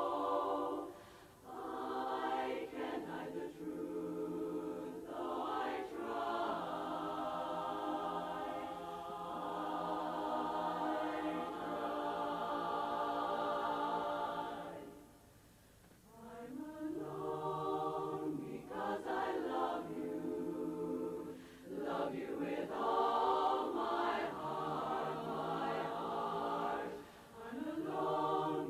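Women's barbershop chorus singing a cappella in close harmony, in sustained phrases with short breaths between them; the longest pause comes about fifteen seconds in.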